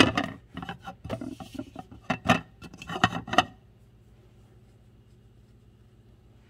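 An irregular run of sharp knocks and clinks at a glass-lidded slow cooker, starting with one loud knock and stopping after about three and a half seconds. A faint steady low hum is left afterwards.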